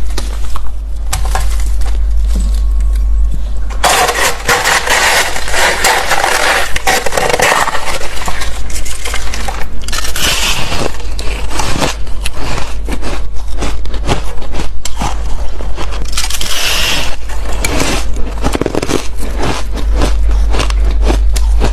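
Close-up biting and crunching of fluffy ice, a steady run of squeaky, crackling crunches over a low rumble.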